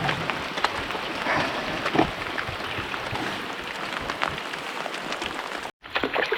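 Steady rain falling on the water and the canoe: an even patter of many small drops with a few louder ones. It cuts out for an instant near the end.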